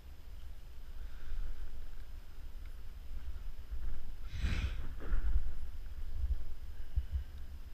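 Low wind rumble on the microphone, with gloved hands handling the ice-fishing rod and the catch sack; a short rustling scrape about four and a half seconds in.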